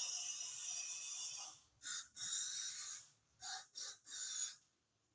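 Aerosol throttle-body cleaner spraying onto a car's throttle body. One long hiss, then four or five short bursts, stopping a little before the end.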